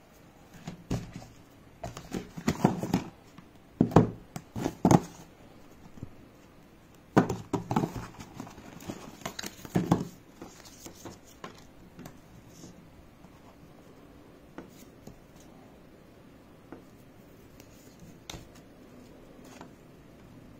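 Paper gift bag and cardboard packaging being handled and unpacked: rustling, scraping and knocks of paper and card, busy and loud for the first half, then only a few light taps and rustles.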